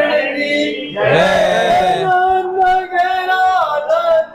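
Men's voices chanting a devotional chant together in long held notes that step up and down in pitch.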